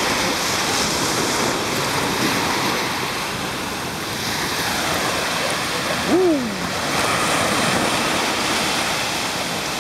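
Small waves breaking and washing up a sandy beach in a steady surf hiss. About six seconds in, a short cry from a person falls in pitch over the surf and is the loudest sound.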